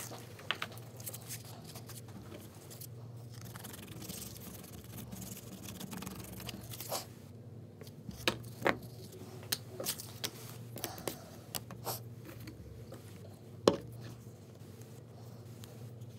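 Paper and craft materials handled on a wooden desk: faint scraping and rustling with scattered sharp clicks and taps, the loudest about three-quarters of the way through, over a steady low room hum.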